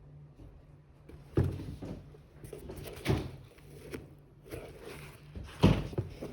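Sneaker box and its contents being handled: three dull knocks, about a second and a half in, about three seconds in, and the loudest near the end, with rustling of cardboard and paper between them.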